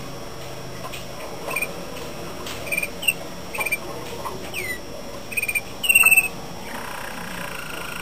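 Malinois (Waterslager) song canary singing: a string of short, separate chirps and clicks, a loud harsh burst about six seconds in, then a longer sustained trill near the end.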